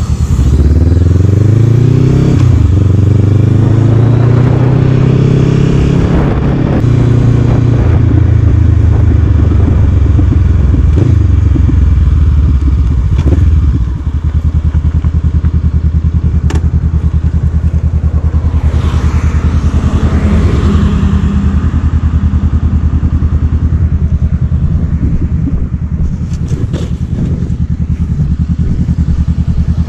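Honda motorcycle engine pulling away, rising in pitch through a gear change about two seconds in and rising again, then running steadily. About 14 seconds in it drops to a steady, even idle as the bike stops at the roadside, with a few light knocks and clatters.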